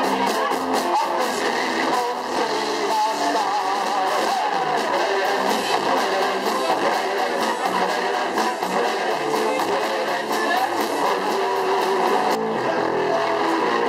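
A live rock band playing loudly, with electric guitar and drums; about twelve seconds in the drum hits stop.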